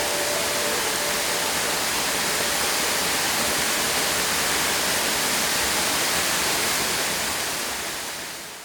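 Waterfall with a modest flow, a steady rushing hiss of falling water that fades out near the end. The last notes of background music die away in the first second.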